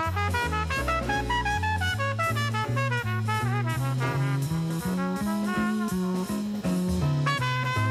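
Swing-style jazz soundtrack: a walking bass line stepping from note to note under a horn melody, with drums keeping time.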